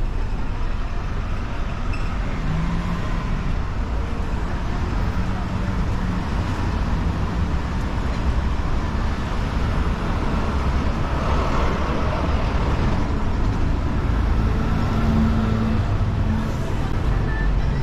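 Traffic on a busy city road: cars and buses running past in a steady rumble of engines and tyres.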